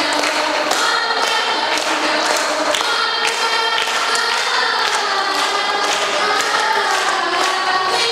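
A group of young women singing together, with regular hand claps keeping the beat.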